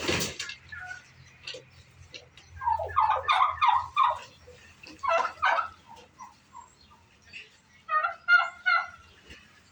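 Turkeys gobbling: three quick rattling gobbles, about three seconds in, about five seconds in and near the end, the last one the loudest. A short bump or knock comes at the very start.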